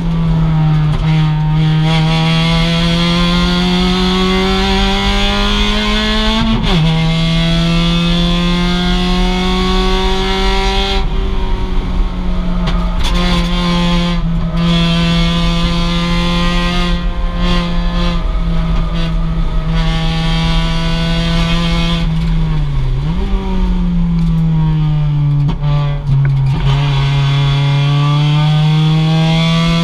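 Mazda MX-5 race car's stock 2.0-litre four-cylinder engine running hard under racing load. It pulls up in pitch through the gears, with two gear changes where the pitch drops sharply, about seven seconds in and again about twenty-three seconds in.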